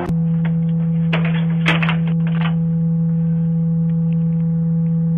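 A steady low electrical hum, with a few crackles and clicks during the first two and a half seconds.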